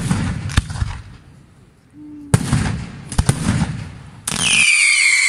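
Aerial fireworks shells bursting with a run of sharp bangs and crackle. Near the end, loud high pitched whistling fireworks start up, their tones slowly falling.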